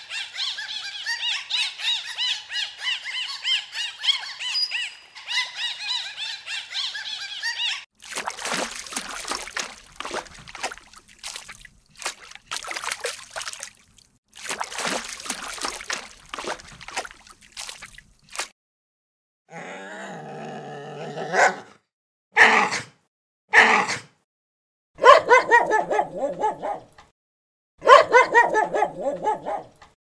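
Bottlenose dolphins chattering in rapid chirps and clicks for about eight seconds. Then about ten seconds of bursts of hissy noise. After that, a dog vocalizes in short barks and yaps, with longer bursts near the end.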